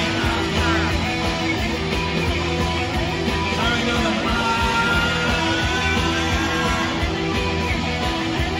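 Rock band playing live with loud electric guitars, bass and drums, with some sliding high notes about four seconds in.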